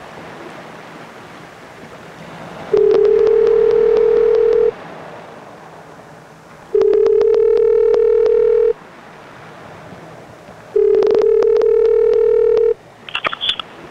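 Telephone ringback tone heard through the phone's speaker while a call waits to be answered: three rings of about two seconds each, two seconds apart, then a few short clicks near the end.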